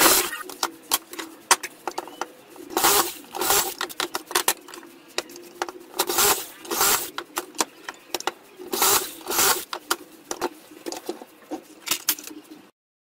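Cordless drill boring pocket holes through a plywood cabinet panel in a pocket-hole jig: short harsh bursts of drilling in pairs, about three pairs, with clicks and knocks of the jig and panel being handled between them, over a steady hum. Everything cuts off suddenly near the end.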